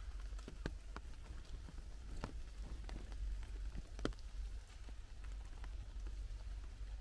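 Rain in a forest: a steady light patter, with a few louder single drops falling at irregular moments onto leaves close by, the loudest about four seconds in. A steady low rumble lies underneath.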